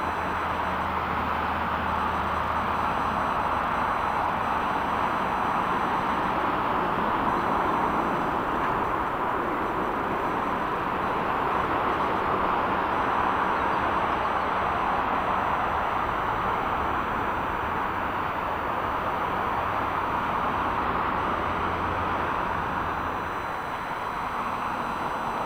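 Jet airliner engine noise: a steady rushing sound that swells slightly in the middle and eases a little near the end.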